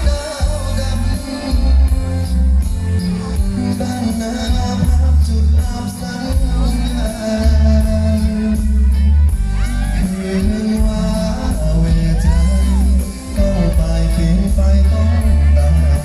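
Live luk thung band music with a singer over a heavy, pulsing bass beat.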